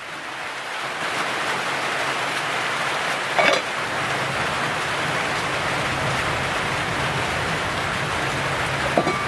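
Steady hiss of heavy rain, building up over the first second and then holding, with one short knock about three and a half seconds in.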